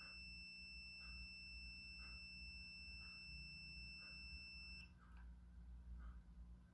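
Kyoritsu 1009 digital multimeter's continuity beeper sounding one steady high beep while its probes read a low resistance, about 6 ohms, across the SCR module's small gate and cathode terminals. The beep cuts off suddenly about five seconds in, as one probe moves to a main terminal and the meter reads open circuit.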